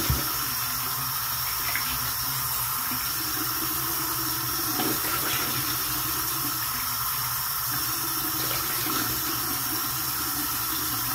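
Bathroom sink tap running steadily into the basin while water is scooped in cupped hands onto the face to rinse off soap.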